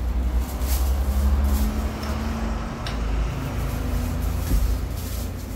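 A loud, steady low rumble with light rustling of plastic shopping bags and a single sharp click about three seconds in.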